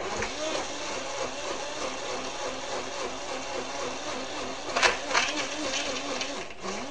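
Hamilton Beach single-serve blender's motor running in pulses as it chops frozen fruit, with a brief stop and a spin-up again near the end. A louder clatter of frozen fruit catching in the blades comes about five seconds in.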